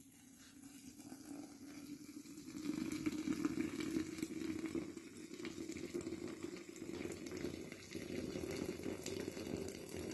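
Boiling water poured in a thin stream into a one-quart glass mason jar of violet blossoms: a steady splashing pour into glass that grows louder about two seconds in.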